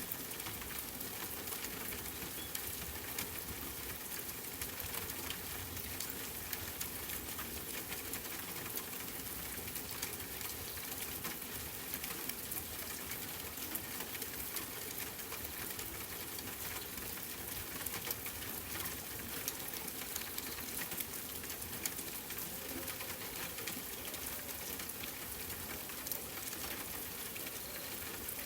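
Steady rain, a constant hiss dotted with many small drop ticks.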